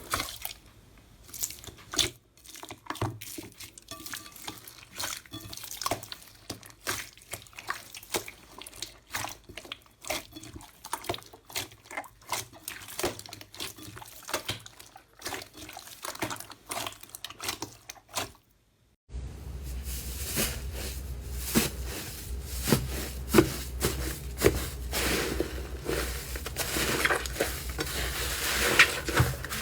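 Slime being squeezed, stretched and poked by hand, giving a stream of wet clicks, pops and crackles. After a brief dropout about nineteen seconds in, the sound changes to a louder, denser crackling over a steady low hum.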